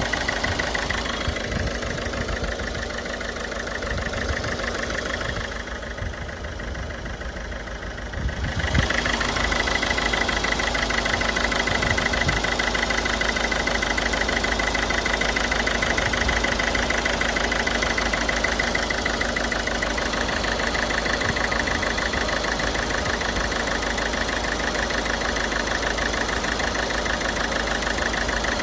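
Ford Figo turbodiesel engine idling steadily, a few dB quieter for about three seconds around six seconds in before returning to its steady level.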